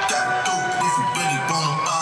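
Background music: a melody of held notes changing about every half second over a steady rhythm.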